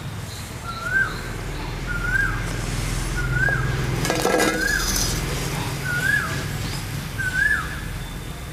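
A bird repeats a short note that rises and then falls, about once a second. A steel skimmer clinks against a steel plate and the kadhai, once about a second in and in a cluster around four seconds in.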